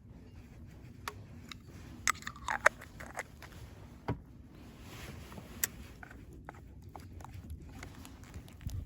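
Camp cooking gear being handled: scattered light clicks and knocks, a cluster of sharper clinks about two seconds in with a short squeak among them, and single knocks near the middle.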